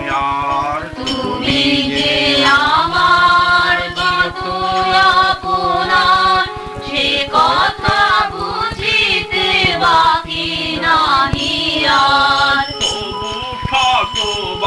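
Devotional kirtan: voices singing a chant over steady sustained instrumental tones, running without a break.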